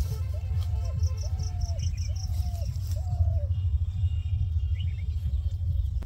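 Rural outdoor ambience: an insect chirping in quick pulses, about seven a second, with a bird repeating a short call about once a second for the first few seconds. Under both runs a steady, uneven low rumble, which is the loudest part.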